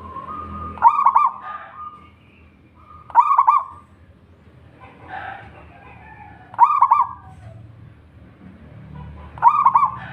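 Zebra dove (perkutut) cooing: four short calls, each a quick run of notes, about three seconds apart.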